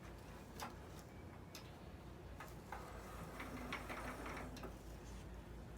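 Faint, irregular light clicks and ticks from handling work at a sewing machine, with a short denser stretch of rustling and clicking about three seconds in.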